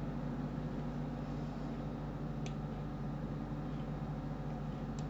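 Steady low electrical hum with faint hiss from the recording setup, and two faint sharp clicks, one about halfway through and one near the end, typical of a computer mouse being clicked.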